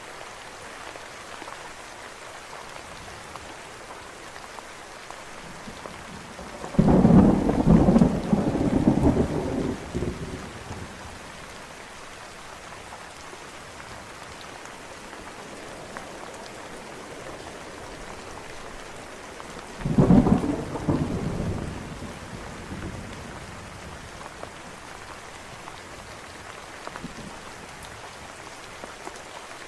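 Steady rain falling throughout, with two loud claps of thunder: one about a quarter of the way in that rumbles on for a few seconds, and a shorter one a little past the middle.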